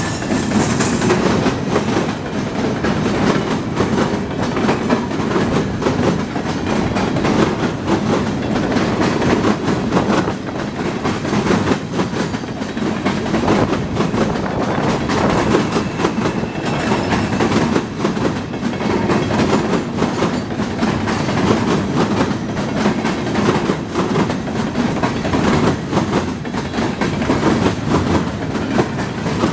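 Freight train gondola cars rolling past, a steady rumble of steel wheels on rail with frequent clacks.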